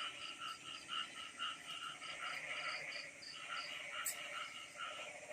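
Frogs calling in a chorus of short repeated notes, two or three a second, with a single sharp click about four seconds in.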